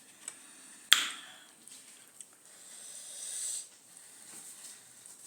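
A single sharp clink of a utensil against a dish about a second in, with a brief ring, followed by a soft breathy hiss in the middle.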